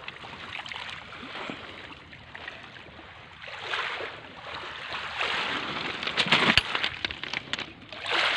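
Shallow water splashing and sloshing around a fishing landing net at a pebble shoreline, swelling and fading unevenly, with a few sharp clicks about six seconds in.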